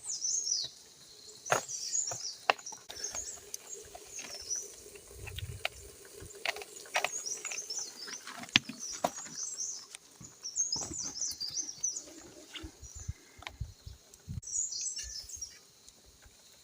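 Small birds chirping in repeated bursts of quick, high chirps, with scattered sharp clicks and knocks in between.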